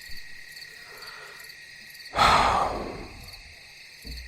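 Steady chirping of crickets in a night-time ambience bed. About two seconds in, a loud breathy exhale from the speaker fades out over about a second.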